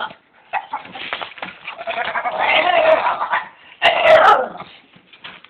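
A pet animal making odd, gremlin-like vocal noises: a long wavering call, then a shorter, louder cry about four seconds in.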